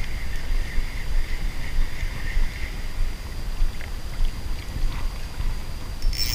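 Steady low rumble of water and wind on a camera held just above a river's surface while a hooked fish is played on an ultralight spinning rod. About six seconds in, a short sharp splash as the fish leaps clear of the water.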